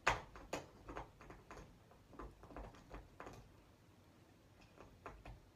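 Soft, irregular clicks and taps, several a second, the sharpest one right at the start, as a lip liner pencil is worked along the lips.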